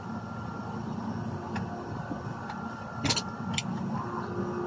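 A shotgun being handled and wiped down with a cloth, giving two sharp metallic clicks about three seconds in, half a second apart, over a steady low rumble.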